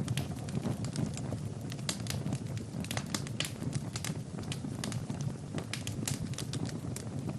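Fire in a fireplace crackling, with frequent irregular sharp pops over a steady low rumble of flames.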